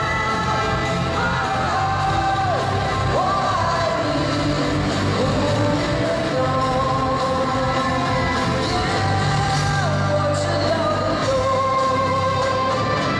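Live pop-rock band playing through a PA: drums, electric and acoustic guitars, with male voices singing a gliding melody over them.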